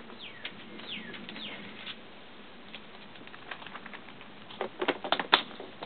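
Light clicks and rustling of a clear plastic bag of small fishing tackle being handled, in a cluster about four and a half seconds in. A few faint, high, descending chirps in the first two seconds.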